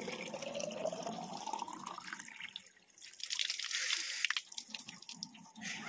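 Water from a metal pipe spout pouring into a small plastic bottle, its pitch rising over the first two seconds as the bottle fills, then water splashing and dripping.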